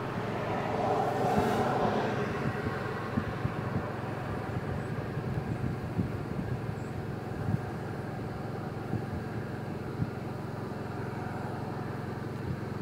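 A car engine running steadily at idle, with a louder swell of noise in the first two seconds and a few small clicks.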